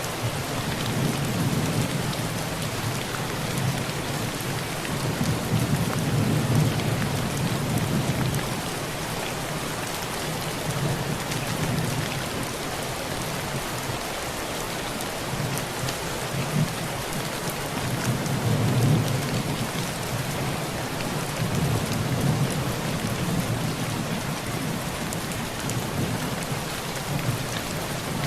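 Heavy rain on a tin roof, a steady dense hiss of drops, with thunder rumbling low underneath in long rolls: one through the first third and another around two-thirds through.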